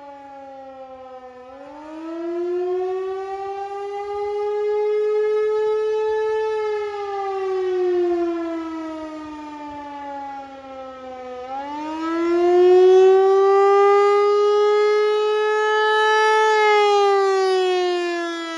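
Federal Signal 508 outdoor warning siren sounding the attack signal in a scheduled test: its pitch rises and falls in long, slow sweeps, twice up and back down, while its loudness swells and fades.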